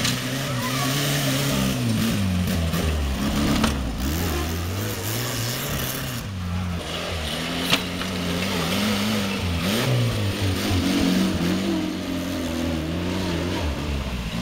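Small tractor engine running and revving up and down, its pitch rising and falling again and again. A single sharp knock comes about eight seconds in.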